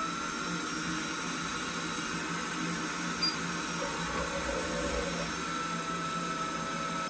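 Hutt DDC55 window-cleaning robot's suction fan running, a steady hiss with a whine, like a vacuum cleaner. This is the suction that holds the robot to the window glass.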